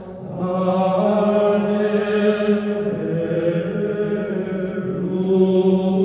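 Chant-like vocal music with long held notes; a new phrase begins about half a second in.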